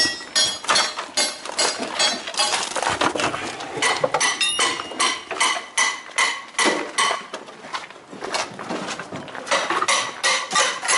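A metal hand tool chipping and prying at tarred roofing and metal flashing: repeated sharp metallic clinks, about three a second, easing off for a second or so past the middle.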